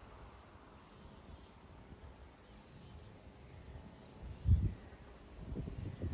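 Faint insect chirping, short high chirps repeating in small groups, with one dull low thump about four and a half seconds in.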